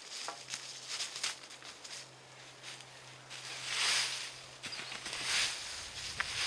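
Rustling and crackling in dry leaf litter and brush, like footsteps or branches being moved, with two louder swishes in the second half.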